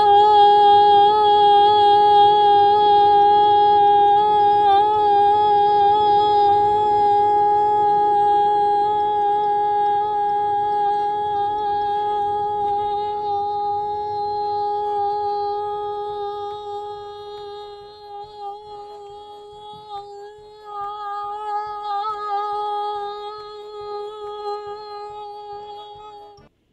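A woman singing one long held note on a single pitch, with a little vibrato at the start and then steady. It slowly weakens, wavers briefly near the end and breaks off.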